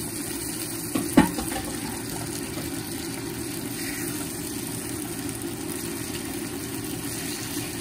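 Raw shrimp sizzling in a frying pan of seasoned shallot and garlic as they are stirred, a steady noise throughout. A sharp clack of the utensil against the pan comes a little over a second in.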